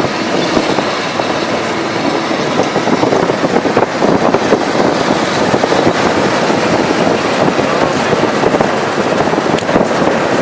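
Loud, steady rushing noise inside a moving car: road and wind noise with the engine running underneath.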